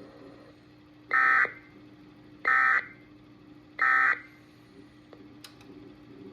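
Emergency Alert System end-of-message tones on NOAA Weather Radio: three short bursts of the warbling two-tone SAME digital data signal, each about a third of a second and about a second apart, marking the end of the alert. A faint steady hum sits underneath.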